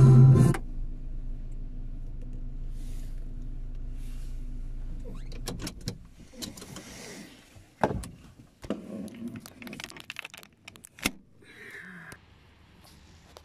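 Car radio music cuts off just after the start, leaving the car's engine running with a steady low hum heard inside the cabin. The hum drops away after about five seconds and gives way to scattered clicks, knocks and rustles of handling inside the car, with two sharper knocks.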